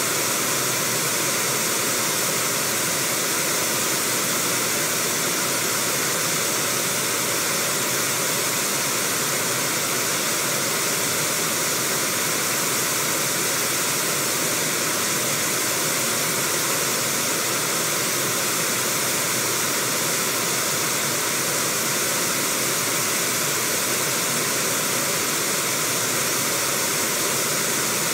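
River rapids rushing steadily: a constant hiss of whitewater, strongest in the high range and unchanging throughout.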